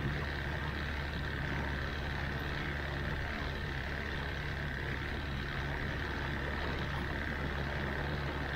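An engine idling steadily, a constant low drone with a faint higher hum above it.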